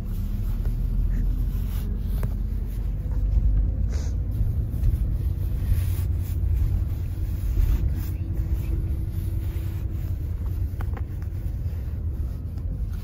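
Steady low rumble of a highway bus's engine and road noise heard inside the passenger cabin, with brief crinkling of a plastic bag being handled a few times.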